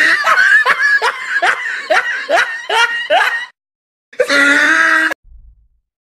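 A man laughing hard: a run of short ha-ha pulses, about two or three a second, then after a brief pause a longer drawn-out laugh that cuts off suddenly.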